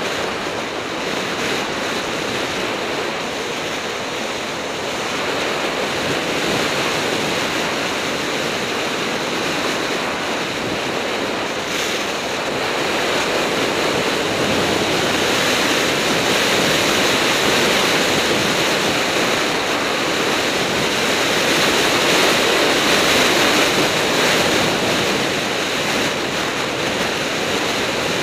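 Steady rush of wind buffeting the microphone of a camera moving at speed down a mountain road, growing a little louder from about halfway through as the speed picks up.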